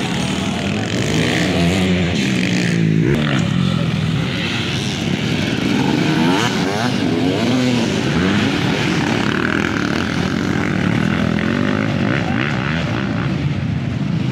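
Several motocross dirt bike engines revving hard while racing, their pitch repeatedly rising and falling as the bikes accelerate and ease off.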